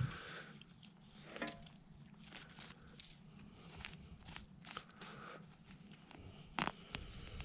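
Faint, scattered crunching and crackling of soil and roots as a plant's runners are dug and pulled out of a garden bed, with a sharper knock about six and a half seconds in.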